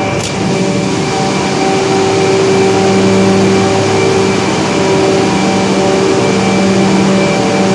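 Large standby generator sets running under emergency power during a power outage: a loud, steady machine drone with a strong hum. A single short click, like a door latch, comes just after the start.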